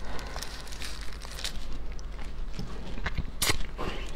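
Close-miked crackles and clicks from a peeled raw spiny lobster tail being handled in plastic-gloved hands, with one sharper click about three and a half seconds in.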